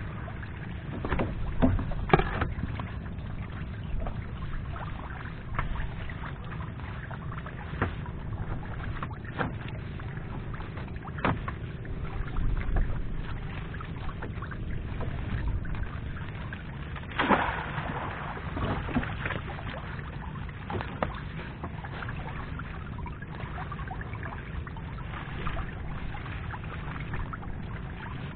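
Water sloshing, splashing and dripping around a small boat over a steady low rumble, with scattered sharp splashes and knocks. The strongest come near the start and about two-thirds of the way through.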